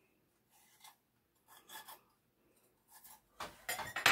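Bell peppers being handled over a wooden cutting board: a few faint, short rubbing and scraping sounds, then a cluster of louder scrapes near the end.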